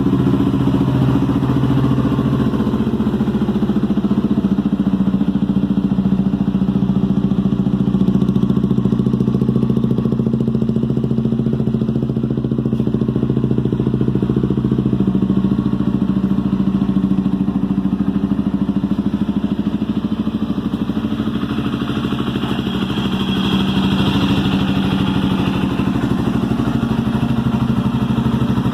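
Honda XRE 300 single-cylinder engine running steadily, near idle, through an aftermarket full exhaust system with a power-boom muffler and twin tips. It sounds a little brighter for a few seconds about three quarters of the way through.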